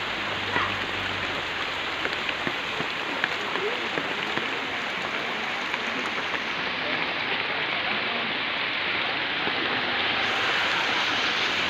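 Steady hiss of falling water, like rain on a surface, with scattered small ticks.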